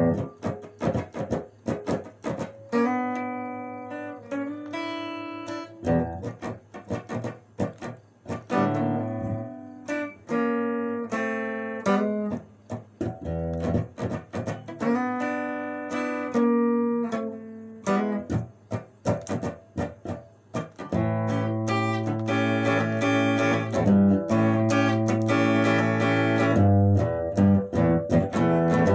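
Telecaster-style electric guitar playing an instrumental boogie: picked single notes and short chord stabs over a low droning bass note. About two-thirds of the way in, the playing gets busier and louder.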